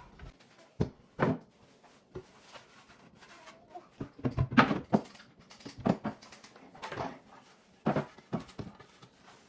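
Irregular knocks and clatters of household items and containers being handled and set down on shelves, with a cluster of quick clattering about halfway through.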